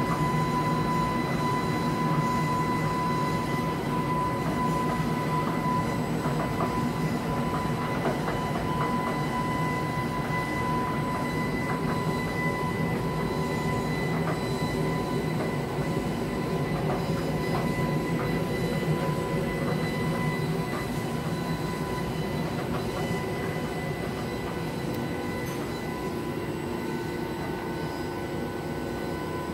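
Plasma electrolytic oxidation cell pulsed at 1000 Hz: a steady high whine at the pulse frequency, with faint crackling from the microdischarges on the sample. Under it runs a steady low machine hum. The whine fades in the last third.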